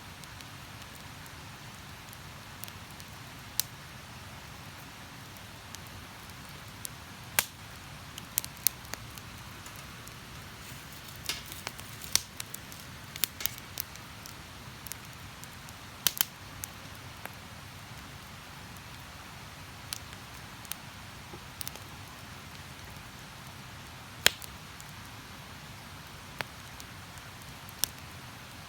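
Wood campfire crackling, with sharp pops at irregular moments over a steady rushing hiss of river water.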